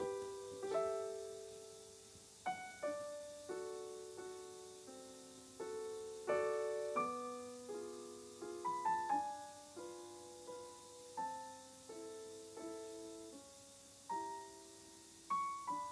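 Soft solo piano background music: gentle single notes and chords, each struck and fading away.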